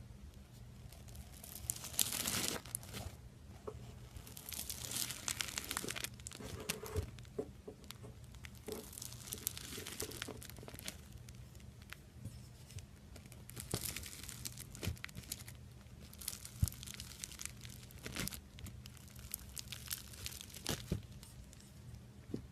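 Slime being squeezed and stretched by hand, crackling and popping in about six bouts a few seconds apart, with single sharp clicks in between.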